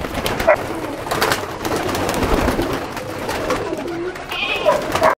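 A crowded flock of pigeons cooing together, many calls overlapping into a continuous din, with a few sharp flutters or clicks among them.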